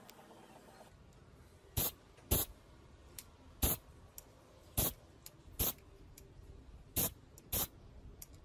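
Spray paint hissing out in seven short puffs, each a fraction of a second and roughly a second apart, coating a small masked plastic model part.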